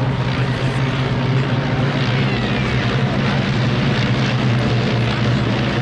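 Eight de Havilland Tiger Moth biplanes flying in formation, their 130 horsepower de Havilland Gipsy Major four-cylinder inline engines and propellers making a steady, loud drone.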